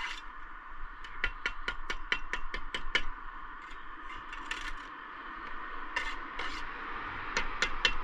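Light, quick taps and scrapes of a bricklayer's hand tool on brick and mortar: a run of about five taps a second from about a second in, a few scattered ones in the middle, and another quick run near the end.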